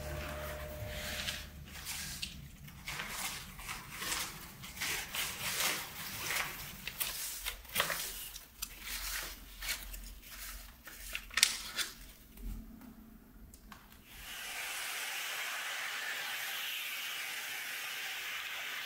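A cloth rubbing and wiping over houseplant leaves in irregular rustling strokes, with one sharper knock about eleven seconds in. About fourteen seconds in, a steady hiss starts and keeps going.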